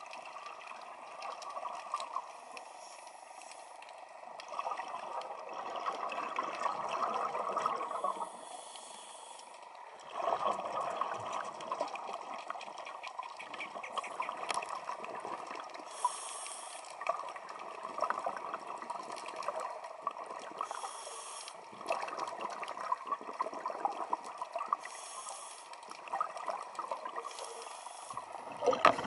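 Scuba regulator breathing heard underwater: bubbling bursts of exhaled air every few seconds, with short high hisses between them and a fine crackle throughout.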